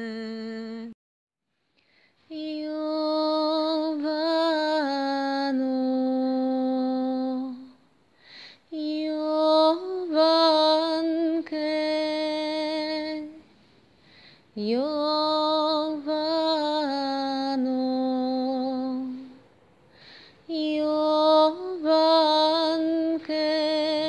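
A woman singing a slow melody in long held notes with vibrato, four phrases separated by short pauses.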